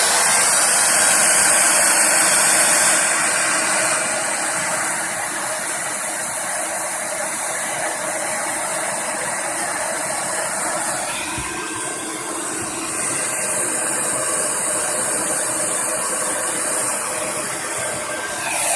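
Handheld hair dryer running steadily, a blowing hiss with a faint motor whine, getting a little quieter after about four seconds. It is blowing hot air into a computer's vent to heat a motherboard that won't power on.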